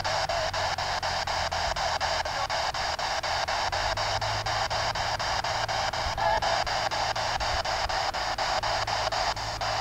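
Spirit box sweeping through radio stations: steady white-noise static chopped by quick, evenly spaced clicks about five times a second, over a low hum.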